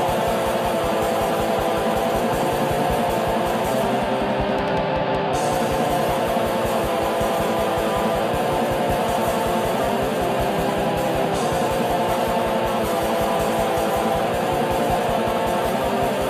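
Heavy metal song: distorted electric guitars playing sustained chords over a fast, steady low beat, at an even loudness throughout. The high end briefly thins out about four seconds in.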